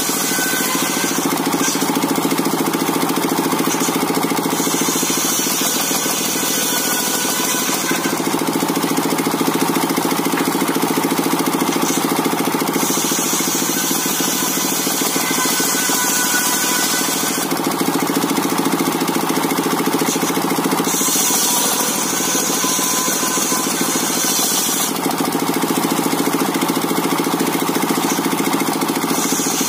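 Engine-driven circular sawmill running steadily, its motor holding an even drone, with a higher hiss that comes and goes every few seconds.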